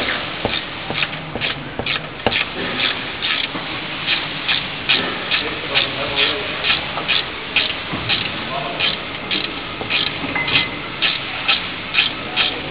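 Wrench working a nut on a spring-loaded exhaust flange bolt under a BMW: a short metallic rasp with each stroke, repeating about two to three times a second.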